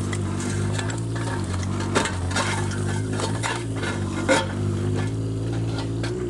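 Mini excavator's diesel engine running steadily, with repeated knocks, clatter and scraping of broken masonry and rubble as the walls are torn down; one sharper knock about four seconds in.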